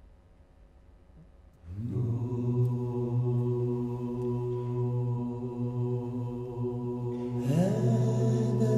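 Chant-like vocal music starts after a near-silent pause: one deep held drone note, joined near the end by a second voice that slides up to a higher held note.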